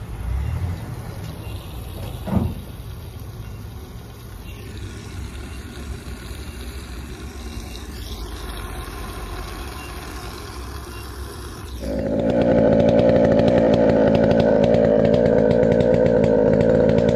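Low background at a fuel pump with a single sharp knock about two and a half seconds in. About twelve seconds in, a two-stroke chainsaw cuts in abruptly, running loud and steady.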